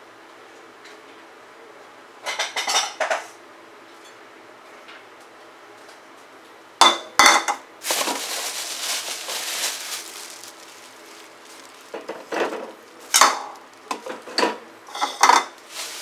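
Kitchen dishes and utensils clinking and knocking: a cluster of clinks about two seconds in, two loud strikes about seven seconds in followed by a few seconds of scraping noise, and another run of clinks and knocks near the end.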